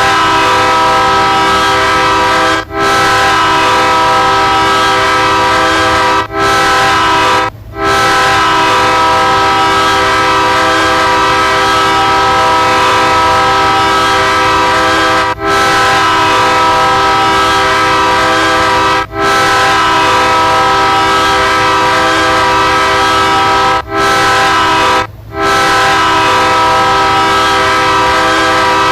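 BNSF locomotive's multi-chime air horn sounding a steady chord in long, loud blasts, broken by seven brief gaps.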